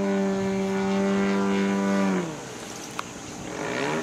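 Radio-controlled aerobatic airplane's engine and propeller droning steadily overhead, then sliding down in pitch and quieting about two seconds in as the plane throttles back or pulls away, with a brief rise and fall near the end.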